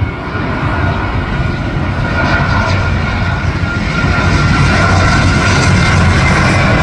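Jet engines of a twin-engine airliner passing low overhead on landing approach with gear down: a steady rumble with a high whine, growing louder.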